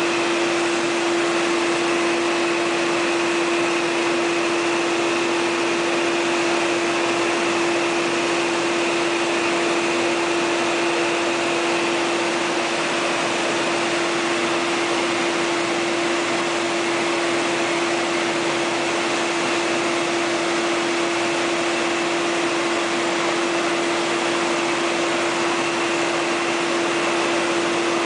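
Steady industrial machinery noise: a constant, unchanging hum with an even hiss over it.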